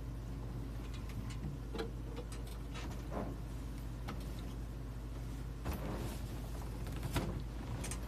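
Scattered short clicks, knocks and rustles from a person shifting about in a gaming chair and moving around, over a steady low hum.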